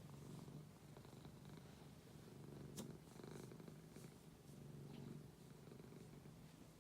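Domestic cat purring softly and steadily, the purr swelling and easing with each breath, with a light click about three seconds in.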